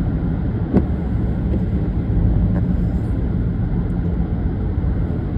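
Car driving, heard from inside the cabin: a steady low rumble of engine and tyres on the road, with a brief sharp knock a little under a second in.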